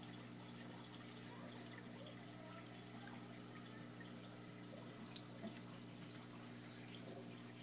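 Faint running of a reef aquarium's water circulation: a steady low pump hum under light trickling and dripping water.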